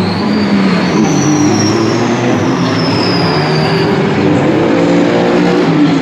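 Race car engines running trackside, their notes rising and falling, with a thin high squeal that slides slowly down in pitch for about three seconds from roughly a second in.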